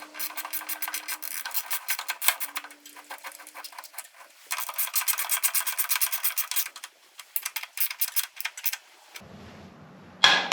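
Ratchet wrench clicking rapidly in several runs as the rear shock mounting bolts are run in and snugged up. The clicking stops about nine seconds in, and a louder knock comes right at the end.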